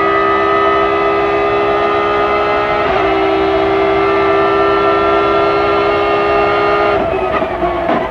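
BMW M3 GT2 race car engine heard from inside the car, held at high, steady revs under full throttle, with a brief break about three seconds in like a gear change. About seven seconds in it comes off the throttle and the revs drop and stutter as it slows for a corner.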